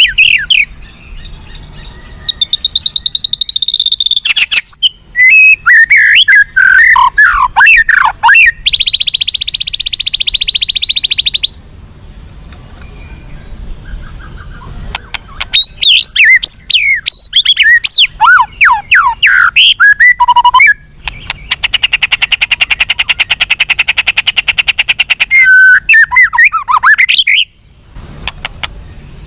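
White-rumped shama (murai batu) singing: loud, varied whistled phrases with gliding notes, broken by short pauses. Twice it holds a long, fast, buzzy trill of two to four seconds.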